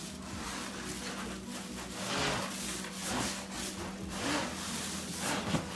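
Cardboard packaging rubbing and scraping as a boxed LED shop light is unpacked, in a series of swishing strokes.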